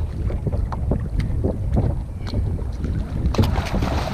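Wind buffeting the microphone and water slapping and knocking against a plastic kayak hull, with louder splashing from about three seconds in.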